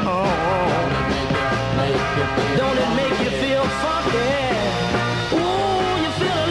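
A rock-style song: a singer's wavering melody over steady bass notes and drums.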